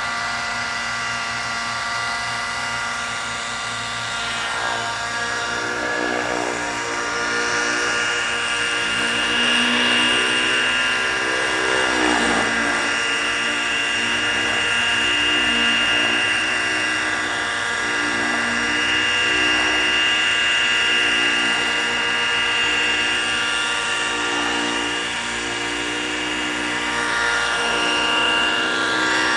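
Freya 90 radio-controlled model helicopter's engine and rotors running at flying speed, with a steady high whine over an engine note that rises and falls as it manoeuvres, dipping briefly once near the middle.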